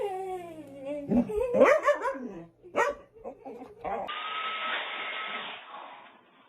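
A dog whining and howling in wavering, falling cries over the first couple of seconds. About four seconds in comes a steady whirring noise with a thin high tone for about a second and a half.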